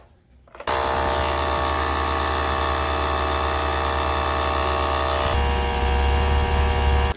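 Porsche's 12-volt portable tire pump switching on about a second in and running steadily with a motor drone, inflating the flat tire; about five seconds in its tone drops and grows heavier.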